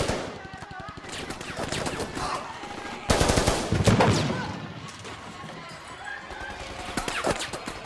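Bursts of automatic rifle fire. The heaviest and loudest burst comes about three seconds in, and another short burst comes near the end.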